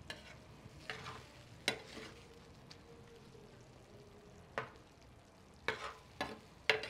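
Plastic spoon stirring a sardine and nopal stew in a glazed clay cazuela, scraping and tapping against the pot several times over a faint simmer.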